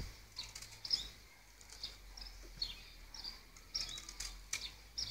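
Small birds chirping, short high notes repeated every half second or so, with a few faint sharp clicks among them.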